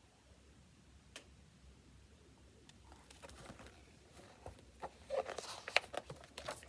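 Faint rustling and crackling of picture-book pages being turned and handled, starting about three seconds in and growing toward the end, after a single click about a second in.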